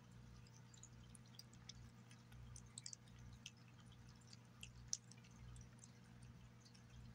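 Cat eating wet food (turkey cuts in gravy) from a glass plate: faint, irregular wet smacking and chewing clicks, a few of them sharper about three to five seconds in.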